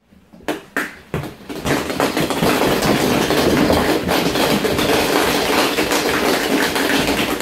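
Many plastic ball-pit balls pouring down and clattering into an inflatable ball pit and against one another. It starts as a few separate knocks and builds within about two seconds to a continuous dense clatter.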